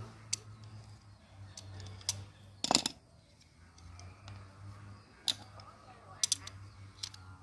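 Scattered metal clicks and clinks of pliers working on the pivot screw of a pair of steel shears as it is being loosened, the loudest a short cluster nearly three seconds in. A steady low hum runs underneath.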